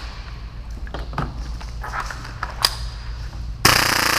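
Tank-fed full-auto Tokyo Marui Hi-Capa airsoft pistol, set for about 30 rounds per second, firing a short rapid burst near the end. Before the burst there are a few light clicks and knocks.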